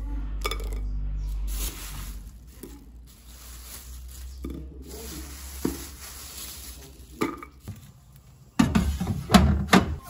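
Garlic cloves and onions knocking lightly against a ceramic dish as they are set down, with a faint papery rustle between the knocks. Near the end comes a louder cluster of clattering knocks.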